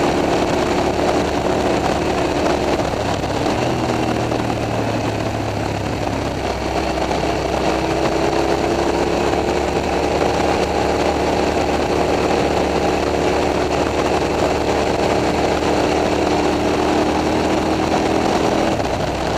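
Motorcycle engines running steadily at low road speed, led by the KTM 990 SMT's V-twin through its Leovince exhaust, with the BMW F800's Remus-exhausted engine running just ahead. The engine note holds even, shifting only slightly in pitch a few times, with no hard revving.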